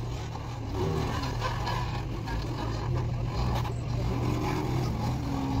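A Jeep's engine running steadily, a low even drone with no revving.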